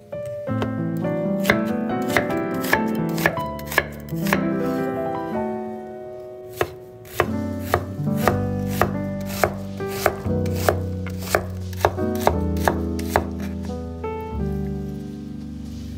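Chef's knife dicing an onion on a wooden cutting board: sharp knocks of the blade on the wood, about two a second, with background music under them.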